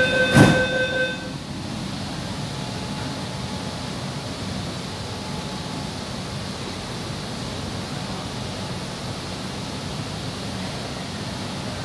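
Steady running noise inside a Kolkata East-West Metro carriage. A sustained electronic tone stops about a second in, and a single sharp knock comes just before it ends.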